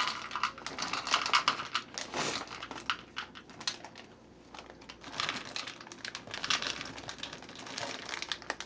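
Bag of chocolate chips crinkling and rustling as the chips are poured and shaken into a measuring cup, with many small clicks. It goes quieter for a moment about halfway through.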